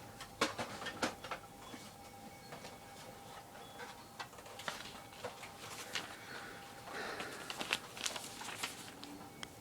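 Large paper instruction sheet being unfolded and handled: irregular crinkles and sharp clicks, busiest a couple of seconds before the end, over a faint steady hum.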